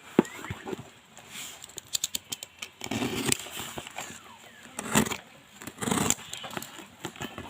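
A parcel being handled and opened: irregular rustling of packaging with many sharp clicks and taps, louder in bursts about three, five and six seconds in.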